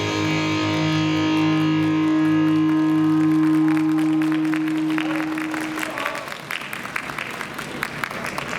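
Yosakoi dance music ending on a long held chord that stops about six seconds in, with audience clapping rising under it and carrying on after it.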